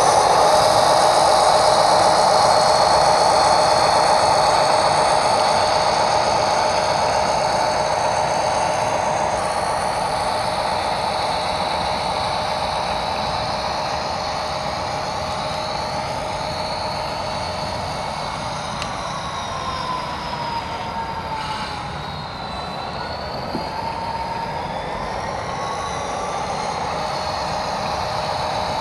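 HO-scale model train running on the layout: a steady whine of held tones over a rolling rumble, with tones that slide up and down in pitch in the second half. It slowly grows quieter, then levels off.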